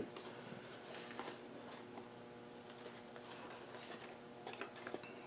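Faint, scattered light clicks and taps of parts and small cardboard boxes being handled on a workbench, over a steady low hum.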